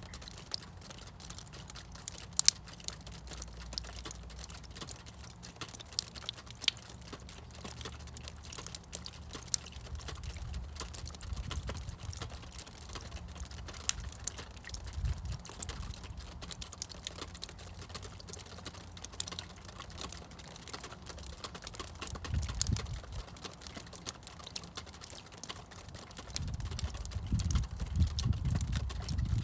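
Meltwater from thawing snow dripping and pattering in many irregular, quick drops. A low rumble runs underneath and swells briefly about two-thirds of the way through and again near the end.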